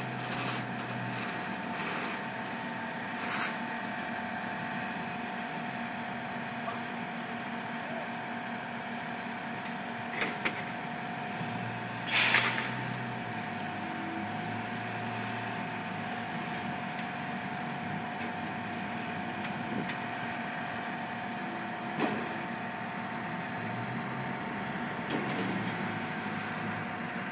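Heavy paving machinery running steadily at a work site, with a few short clanks and a loud half-second hiss about twelve seconds in.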